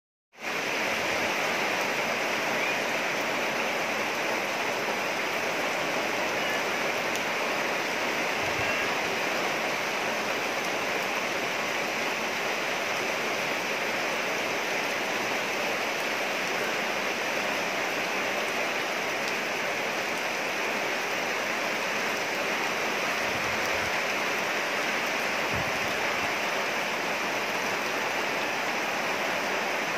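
Steady rain falling, an unbroken even hiss.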